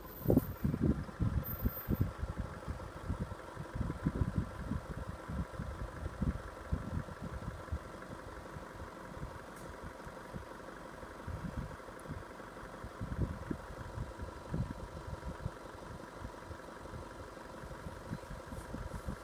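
Wind buffeting the microphone in irregular low rumbles that rise and fall, over a faint steady high tone.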